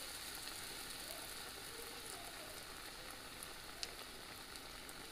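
Beer-battered rockfish fillet, just lowered into hot frying oil, sizzling steadily with faint crackles. A single sharp click about four seconds in.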